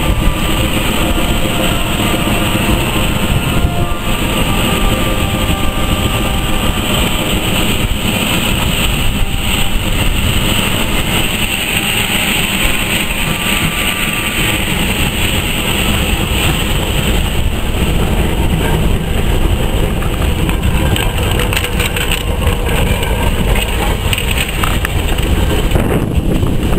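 Steam tank engine moving slowly along the track, a steady hiss and rumble.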